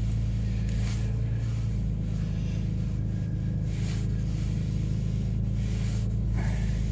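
Porsche flat-six engine idling steadily at about 1,000 rpm while still cold.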